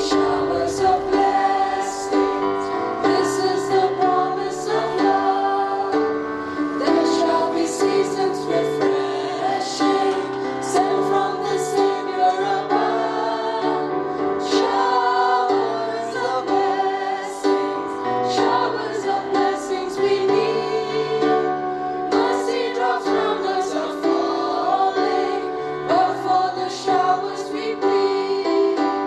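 A group of women singing a prayer song together with instrumental accompaniment.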